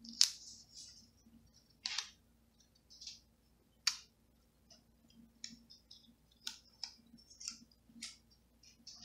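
Sticker sheets and planner paper being handled: a scattered series of short, crisp paper clicks and crinkles, about ten in all, the loudest right at the start and at about four seconds.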